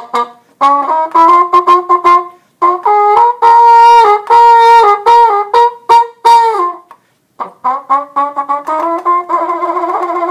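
Trumpet playing a phrase of quick tongued notes that move into longer held notes, with a brief break about seven seconds in before the playing resumes.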